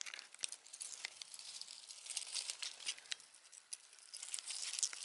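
Faint, irregular crackling and crinkling of dry leaves and pine needles, a scatter of small sharp ticks.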